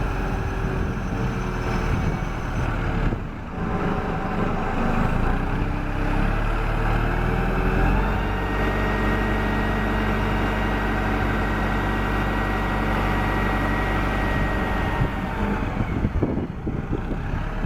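1999 SkyTrak 10054 telehandler's diesel engine running, revving up about three seconds in and holding a raised, steady pitch for several seconds with a thin high whine alongside, then settling back near the end.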